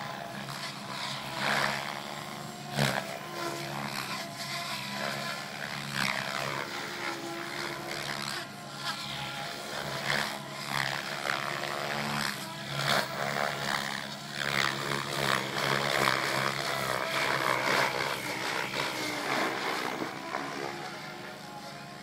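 SAB Goblin 700 radio-controlled helicopter flying 3D aerobatics: the main rotor blades whoosh and the drive whines, the pitch sweeping up and down as it flips and manoeuvres. It grows louder on low passes, most of all about two-thirds of the way in.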